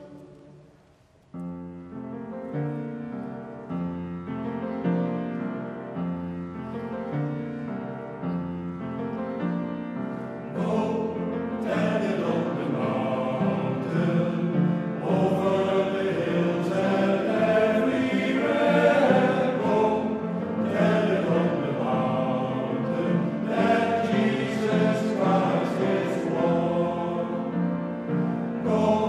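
Mixed choir singing with piano accompaniment in a reverberant church. A held chord fades away at the start, new music begins about a second in, and it grows louder and fuller about ten seconds in.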